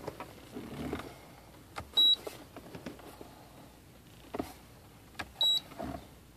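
Feniex 4200 emergency-light controller giving two short, high beeps about three and a half seconds apart as its buttons are pressed, each just after a sharp click. The beeps confirm the light modes being switched on.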